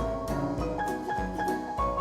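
Background music: a melodic tune of short pitched notes over a regular deep beat.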